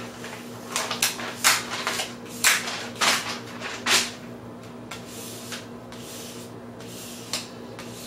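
A hand rubbing and pressing a flexible adhesive magnetic sheet flat onto a 3D printer's glass bed, with its paper backing being pulled out from under it. A quick series of rubbing swishes through the first four seconds, fainter and sparser after.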